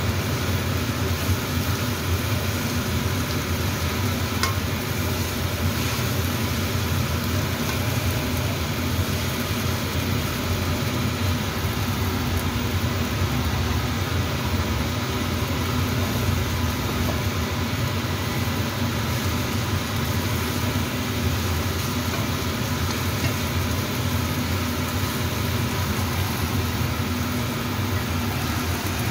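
Egg and chopped long beans frying in oil in a nonstick wok, sizzling steadily, over a constant low hum.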